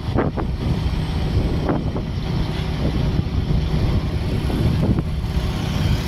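Wind buffeting the microphone of a moving vehicle over a steady low road rumble, with brief gusts now and then.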